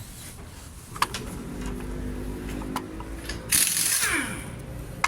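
A sharp click, then a low whirring mechanism with steady tones for about two and a half seconds. About three and a half seconds in comes a sudden hissing burst with a falling whine.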